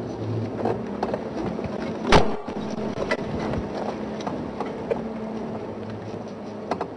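Game-drive vehicle driving slowly off-road through bush, its engine running at low revs, with frequent small rattles and knocks from the rough ground and one loud knock about two seconds in.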